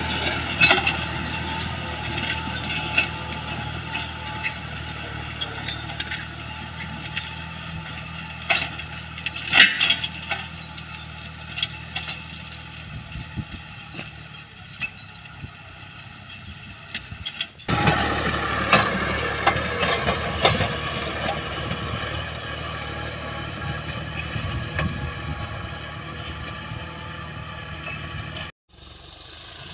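John Deere farm tractor's diesel engine running steadily under load as it pulls a disc plough through dry soil, with a few sharp knocks. The engine grows fainter as the tractor moves off, comes back louder about two-thirds of the way through, then fades again.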